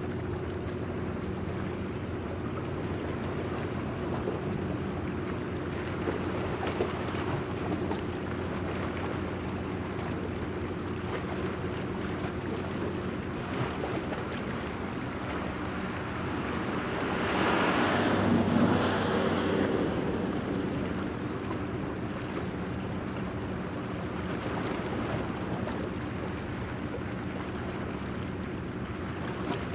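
Helicopter destroyer JS Kaga underway, giving a steady low machinery hum of several tones over a wash of water and wind noise. A louder rush of noise swells up and fades away over about three seconds past the middle.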